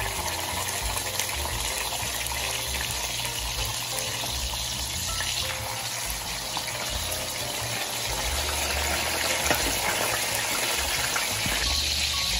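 Atlantic mackerel fillets frying in hot oil in a pan, giving a steady sizzling hiss that grows louder near the end.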